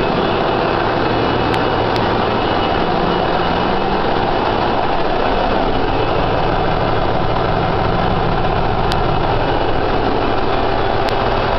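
Ship's engine room machinery running: a very loud, steady din of diesel engines and auxiliary plant with a low hum underneath, and a few faint clicks.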